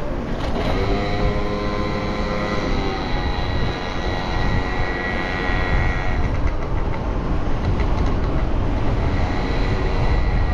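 Steady wind rumble on the microphone and road noise from riding a bike down a city street. An engine hum, falling slightly in pitch, runs through the first few seconds, and a thin high whine sounds around the middle.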